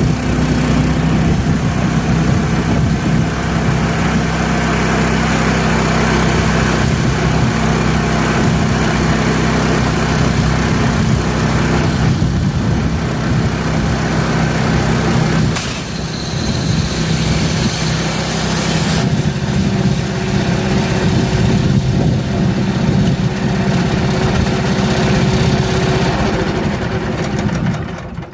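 Small gasoline engine of a Frontier OS27 portable bandsaw mill running steadily, its sound shifting about two-thirds of the way through.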